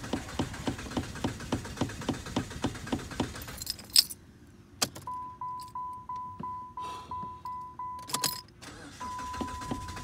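A car's starter motor labours to crank a reluctant engine in slow pulses, about three a second, without it firing. The key is let go with a couple of sharp clicks. The dashboard chime then beeps rapidly, about four times a second, before settling into a steady tone.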